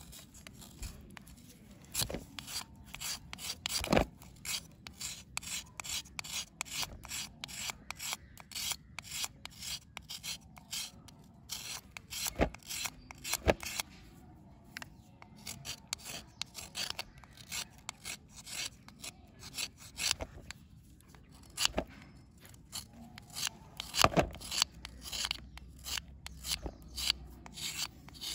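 A knife blade scraping a dry red bar in quick, short rasping strokes, several a second, shaving it to powder. Now and then there is a sharper click.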